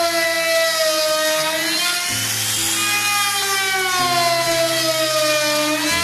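Background music with a bass line that changes note about every two seconds, mixed with the high whine of a hand-held wood trim router cutting a hinge recess in a door frame; the whine's pitch sags slowly under the load and picks up again twice.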